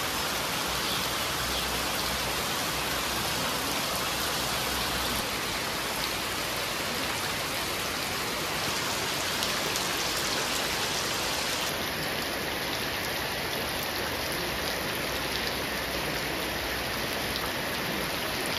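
Steady rain falling, an even hiss of many small drops that holds level throughout.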